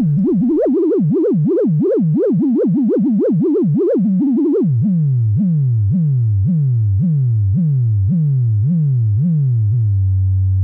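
Modular synthesizer tone whose pitch is driven by the Make Noise Richter Wogglebug's random voltages, with a cycling Maths contour fed into its ego input: the pitch wobbles up and down about four times a second. About halfway through it drops lower into repeated downward swoops about twice a second, and it settles on a steady low tone near the end.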